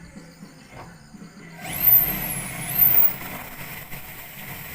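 A sudden loud hissing rush of noise, about a second and a half in, with a very high whistle that dips and climbs back, then settling into a steady lower noise.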